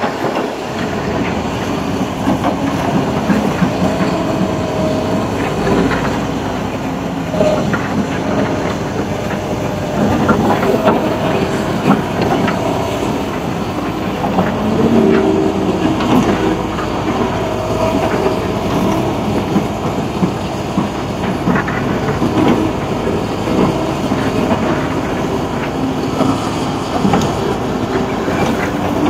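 Excavator working coal: engine running steadily, with pitched whines that come and go and frequent irregular clanks and knocks as the bucket handles the coal.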